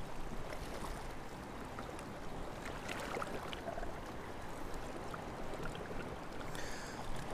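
Faint, steady wash of small waves lapping against shoreline rocks, with a few soft ticks scattered through it.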